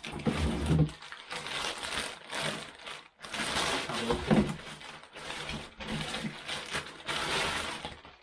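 Packaging being handled: continuous rustling and crinkling in long swells as parts are pulled out and unwrapped, with a few soft knocks near the start and about four seconds in.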